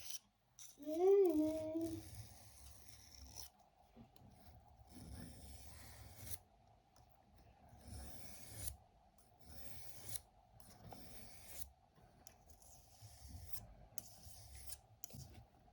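Small pocket-knife blade being drawn across a water-wetted whetstone: soft rasping strokes, one every second or two.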